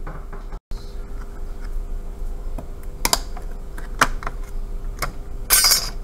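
Steel tweezers clicking and scraping against the thin metal shield plate of an iPad logic board as the shield is pried off. There are several sharp metallic clicks, the clearest about three, four and five seconds in, then a brief high scrape near the end as the plate comes away.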